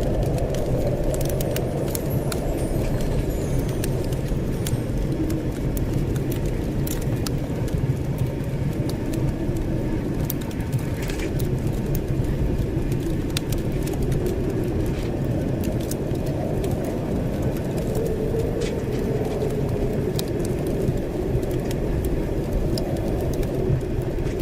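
Blizzard wind: a steady low rush whose pitch drifts slowly up and down, with scattered small clicks and crackles over it.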